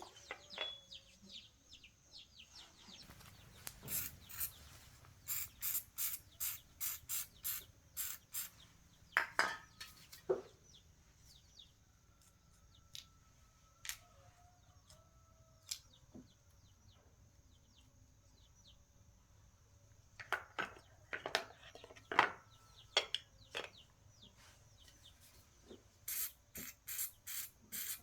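Runs of sharp taps and clicks, a few a second, with small birds chirping in the background.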